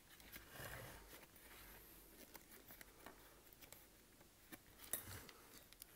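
Faint handling noise: gloved hands rustling and wires scraping and clicking against a lamp base while the lamp is being rewired, with one sharper click about five seconds in.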